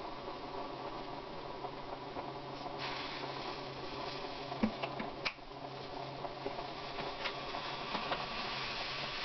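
Steady hiss of a gas stove burner heating a steel pot of milk, over a faint low hum, with a few light clicks and taps around the middle.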